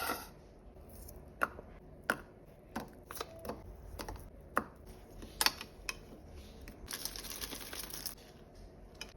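Irregular sharp taps and clicks of food and utensils being handled on a hard kitchen surface, with about a second of scraping rustle roughly seven seconds in.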